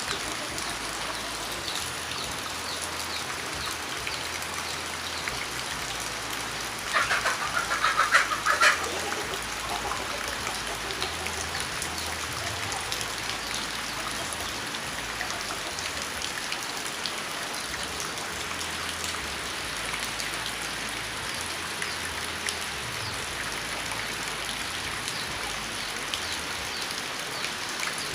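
Steady rain falling, with many small drips ticking on a surface. About seven seconds in, a loud bird call, such as a domestic fowl, sounds for about two seconds over the rain.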